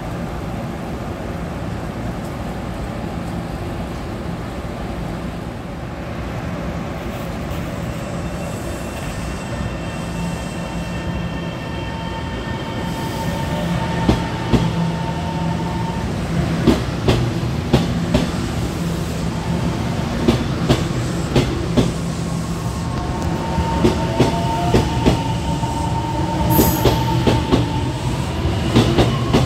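Taiwan Railway EMU700-series electric multiple unit moving along the platform with a steady rumble and a faint electric motor whine. From about halfway, its wheels click over rail joints, coming faster toward the end, with a brief high wheel squeal near the end.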